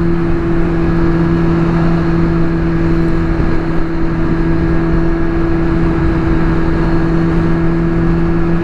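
Kawasaki Z1000 R's inline-four engine holding steady revs while cruising at highway speed, a constant drone over the rush of wind and road noise.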